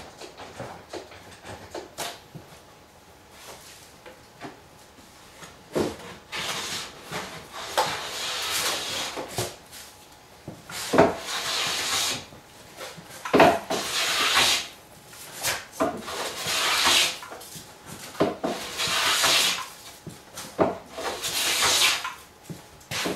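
A hand plane being pushed along the edge of a wooden cladding board, in about six long hissing strokes, each starting with a knock as the plane is set down. The first few seconds hold only a few light knocks and handling noises.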